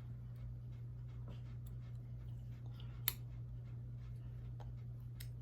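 Faint scratching of a pen or pencil drawing a freehand line across a cardboard pattern, over a steady low hum, with one sharper tap about three seconds in.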